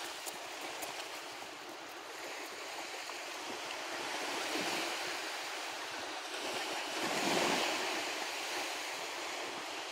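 Sea surf washing onto a sandy beach, a steady rushing that swells twice, loudest about seven and a half seconds in, with some wind on the microphone.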